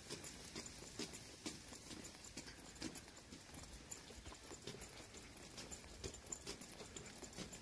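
Footsteps of someone walking on a tiled ramp, light hard steps at a steady walking pace of about two a second.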